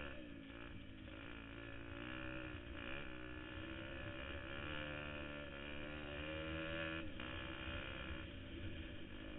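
KTM 250 XC-F dirt bike's four-stroke single-cylinder engine pulling along a trail, heard from the rider's helmet. The revs dip and climb back three times: right at the start, about three seconds in and about seven seconds in.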